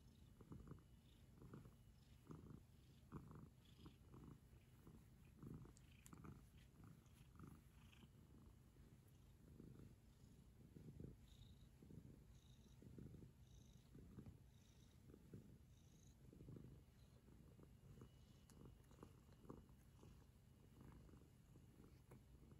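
Black cat purring faintly while being stroked on a lap, a soft low rumble that pulses in a regular rhythm, a little over once a second.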